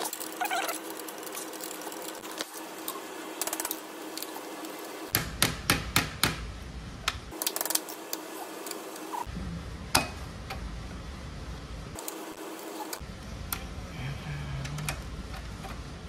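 Hand tools clicking and clinking on a Yamaha R15 V3's gear shift lever linkage as its bolt is loosened to reset the lever's height. The sharp metal clicks come scattered, with a quick run of them about five seconds in and a single louder one about ten seconds in.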